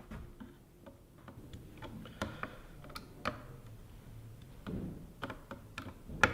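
Small irregular clicks and light taps of a rifle scope and its ring screws being handled and adjusted in scope rings, with one sharper click near the end.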